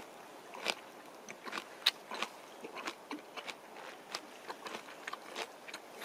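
Someone biting into and chewing a Korean melon (chamoe) with its skin on: a run of irregular crunches, the sharpest about two seconds in.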